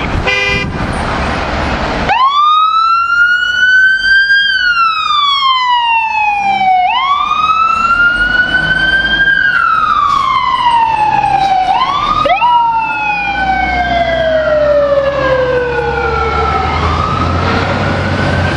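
Fire engine siren wailing as the rig responds, sweeping slowly up and down about every five seconds over the rumble of the truck's engine. A second siren's wail overlaps from about twelve seconds in. A short horn-like blast comes at the very start.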